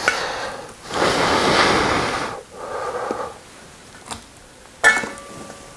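Long breaths of air blown over steaming-hot ramyun noodles held up on chopsticks, three blows in a row with the middle one the longest. Near the end comes a sharp clink with a short metallic ring, from the brass pot lid.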